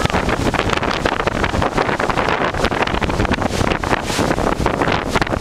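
Strong stormy wind blowing hard against the microphone: a loud, steady rumble and hiss that swells and dips in quick gusts.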